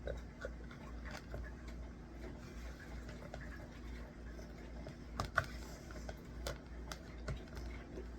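Scattered light clicks and taps of a spoon against a plastic yogurt cup while eating, the sharpest click about five seconds in, over a low steady hum.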